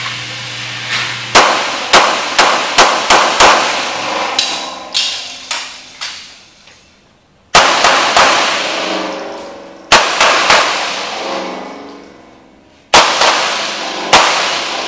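Handgun shots fired in an indoor concrete range, each sharp crack trailing off in a long echo. About a second in comes a quick string of about six shots. A few more spaced shots follow, then, after a pause, further shots in pairs and singles.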